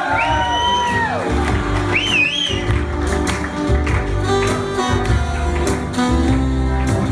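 Live jazz band playing an instrumental dance number: saxophones over electric guitar, keyboard and a steady bass and drum beat. A held high note falls off about a second in, and a shrill wavering whistle cuts through about two seconds in.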